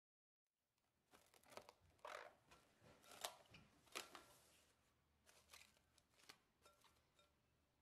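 Plastic cling film crinkling and crackling as it is stretched over a glass mixing bowl and pressed onto its rim. The sound is a quiet, irregular series of sharp crackles.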